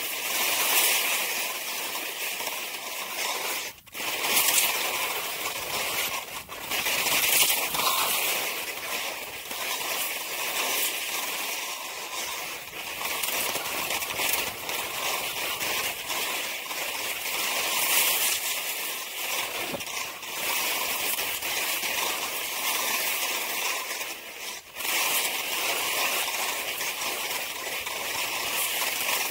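Skis sliding and scraping over packed snow: a steady hiss that swells and fades with each turn, dropping out briefly twice.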